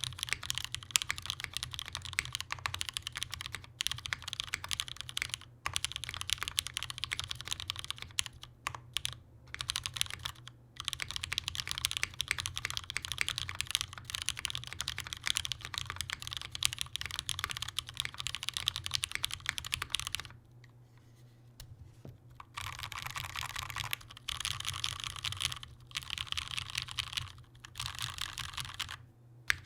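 Typing on a Perry MC65 mechanical keyboard: Cherry Nixie switches lubed with 205g0 on an aluminum plate, with GMK Sloth keycaps and no foam. Steady runs of key presses with short breaks, a pause about 20 seconds in, then about two seconds later fast repeated presses of single keys and modifier keys.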